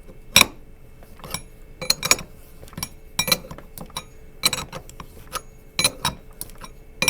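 Sharp metallic clicks and clinks, one or two a second and often in pairs, each with a short ring: hand tools working on a power steering pump as a fastener is tightened.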